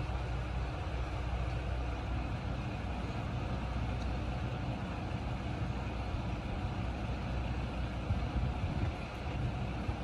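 Diesel railcar of the KiHa 37100 type idling at a standstill: a steady, low engine rumble.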